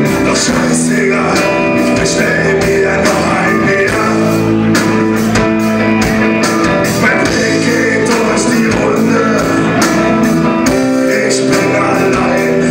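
Rock band playing live and loud: electric guitars, drums and a male singer, heard from within the club audience.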